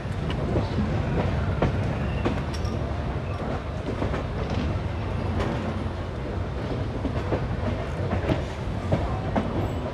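Passenger train running on the track: a steady low rumble with wheels clacking over rail joints in an irregular run of sharp clicks and knocks.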